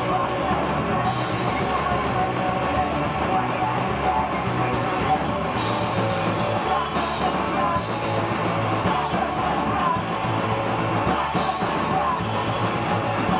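A rock band playing live and loud on electric guitars and bass guitar, with a steady driving rhythm.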